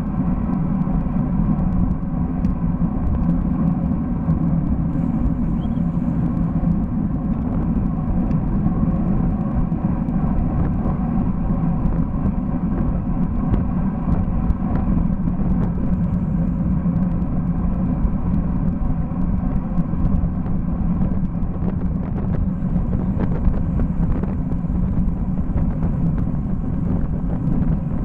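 Steady wind rush and road rumble on a Cycliq bicycle camera's microphone while the bike is ridden along the road, with the deep rumble loudest.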